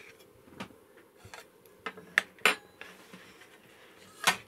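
Kitchen knife clicking and scraping against the plate while slicing a bundt cake: a handful of short, sharp clicks, the loudest about two and a half seconds in and again near the end.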